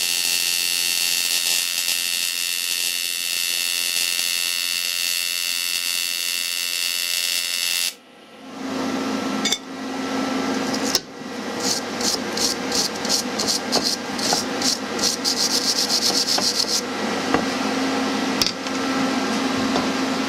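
TIG welding arc brazing cast iron with silicon bronze rod: a steady hiss with a high, even whine, cutting off abruptly about eight seconds in. After that, a steady motor hum with rapid rhythmic scraping strokes takes over.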